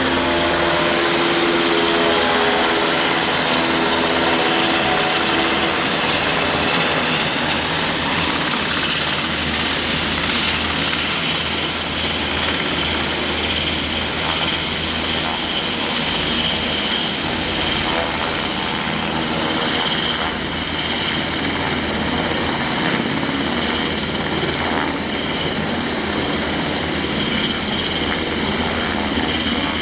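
Army Black Hawk helicopter hovering low overhead, its rotor and turbine making a loud, steady drone.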